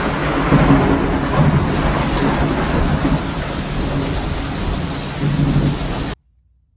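Loud, steady rushing noise with a low rumble underneath, cut off abruptly about six seconds in.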